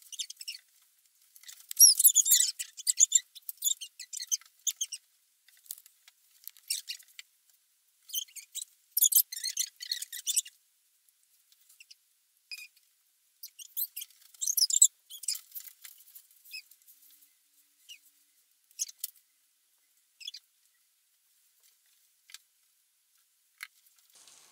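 Wallpaper being scratched and torn off a wall by a toddler's fingers, in bursts of thin, high scratching and rustling. The bursts come in clusters through the first two-thirds and thin out to a few faint ticks near the end.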